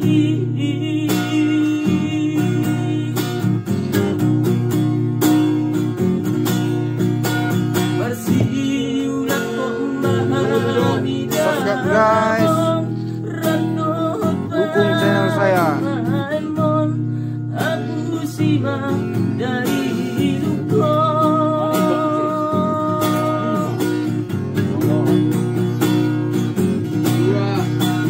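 A man singing to his own strummed acoustic guitar, the voice sliding between notes and holding some long ones over steady chords.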